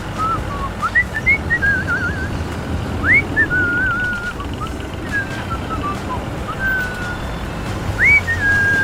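A whistled tune: short upward swoops into wavering, warbling held notes, in several phrases, the last held note near the end. A steady low rumble like a running motor sits underneath.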